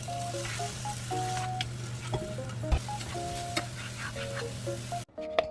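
Food sizzling in a frying pan and being stirred, with sharp clicks and scrapes of a utensil against the pan. The frying cuts off abruptly near the end.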